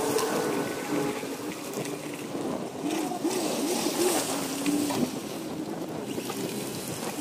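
Plow pickup trucks idling, a low engine hum that wavers in pitch near the middle, under a steady hiss of wind on the microphone.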